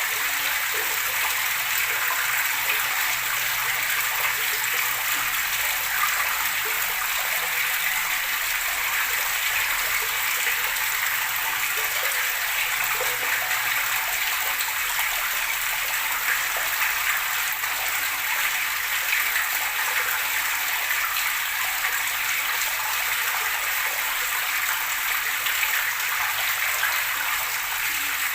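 Running water flowing and splashing steadily, a bright, even rush with little deep rumble.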